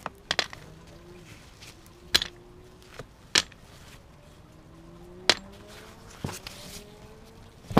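Sharp knocks and taps from handling a hand-carved wooden lure body on a table while it is wrapped in mesh scale netting, about seven scattered through.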